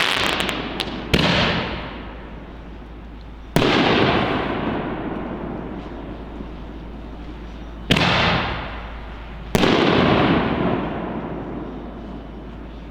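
Firework artillery shells (Winda Tank Busters) going off: four sharp booms a few seconds apart, each trailing off in a long echoing rumble, with brief crackling near the start.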